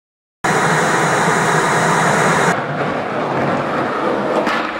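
Skateboard wheels rolling on concrete: a loud, steady rolling noise that starts abruptly, drops in level about two and a half seconds in, and has a few sharp clicks near the end.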